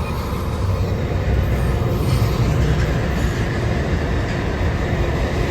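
Train passing at speed: a steady low rumble of wheels on the rails with a rushing hiss above it.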